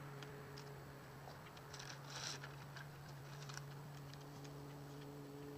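Faint crinkling and small clicks of masking paper and tape being pressed and smoothed by hand onto a car's windshield and cowl, busiest a little past two seconds in, over a faint steady low hum.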